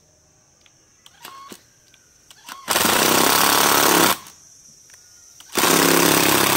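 Cordless impact driver running a screw into wood: two bursts of rapid, loud hammering, each about a second and a half long. The noise comes from its conventional hammer-type impact mechanism, which the owner calls characteristic of this tool, unlike the quiet oil-pulse drivers.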